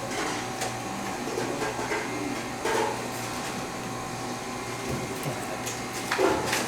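Indoor dining-room background: a steady machine hum with a few light clicks and short muffled sounds, about 3 and 6 seconds in.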